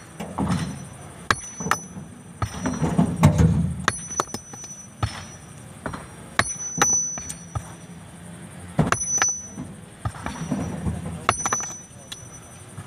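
Steel sledgehammer blows on a large stone block, striking about every second or two, several in quick pairs, each a sharp crack with a short high metallic ring.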